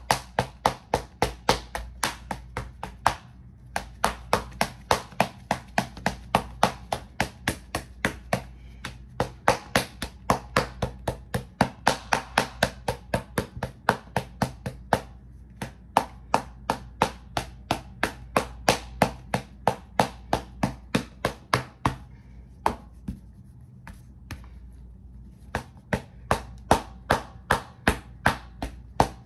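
Rapid, regular tapping, about four sharp taps a second, over a steady low hum, pausing briefly about three and fifteen seconds in and for a couple of seconds near twenty-three seconds in.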